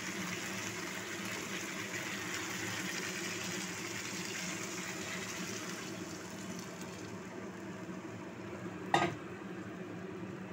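Water poured into a hot pan of fried-down masala chicken and potatoes, splashing and sizzling steadily for the first six or seven seconds, then quieter. A single sharp knock near the end.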